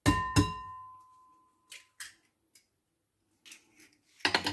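An egg knocked twice against the rim of a stoneware mixing bowl, the bowl ringing for a second or two afterwards. A few faint clicks follow, then a quick cluster of taps near the end.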